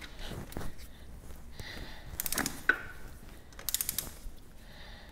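Ratchet head of a click-type inch-pound torque wrench clicking in two quick runs, a little past two seconds in and again near four seconds, with one louder sharp click between them, as cylinder head nuts are being tightened.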